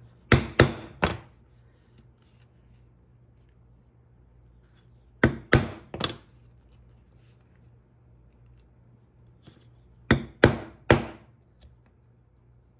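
A mallet striking a 4 mm stitching iron to punch stitch holes through leather: three groups of three sharp knocks, about five seconds apart.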